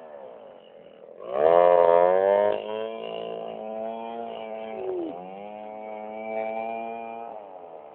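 STIHL two-stroke chainsaw running hard while cutting through a coconut log. It revs up loudly about a second and a half in, and its pitch sags and recovers as the chain bites into the wood, with a sharp dip about five seconds in.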